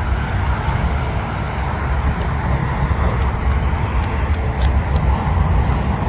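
Steady rumble of road traffic, with a deep, uneven low rumble underneath.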